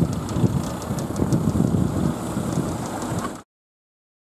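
Rumble of a train running away past the level crossing, its wheels ticking faintly, mixed with wind on the microphone. The sound cuts off suddenly about three and a half seconds in.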